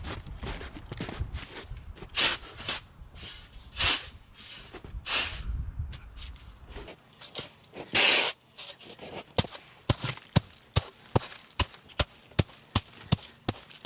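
Several rustling, crunching swishes, then from about nine seconds in a quick, even series of sharp taps, about four a second.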